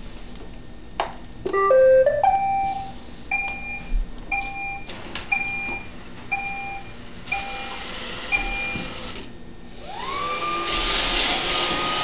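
iRobot Roomba robot vacuum starting up: a click, a quick rising run of electronic tones, then a two-note beep repeated about eight times. About ten seconds in, its vacuum and brush motors spin up with a rising whine and settle into a steady whirring rush as it starts cleaning.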